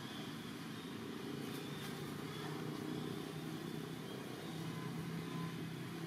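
Steady low engine hum, like a motor vehicle running out of sight, growing a little stronger in the second half.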